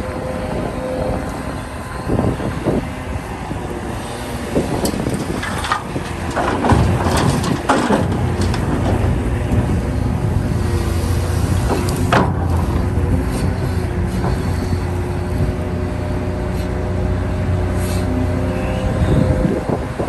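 Large Hitachi ZX670LC hydraulic excavator working: its diesel engine runs steadily under load, with metallic clanks and knocks, several about a third of the way in and one more past the middle. The engine note grows heavier and steadier from about a third of the way in.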